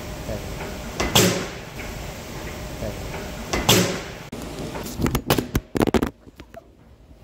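Steady background hum with two louder thuds, then, near the end, about a second of sharp knocks and clatter as a phone is fumbled and dropped.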